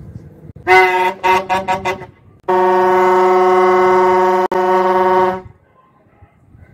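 A plastic vuvuzela blown at one steady pitch: first a quick run of about five short toots, then one long held blast of about three seconds that cuts off about five and a half seconds in.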